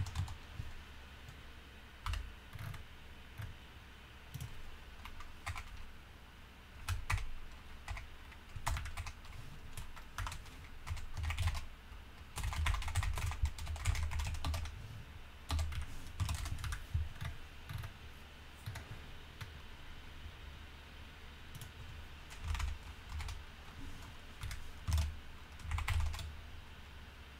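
Computer keyboard typing: single keystrokes and short quick runs of keys with pauses between.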